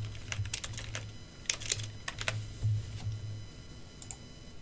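Computer keyboard typing: a handful of separate keystrokes in the first two and a half seconds, then a single click about four seconds in, over a low background hum.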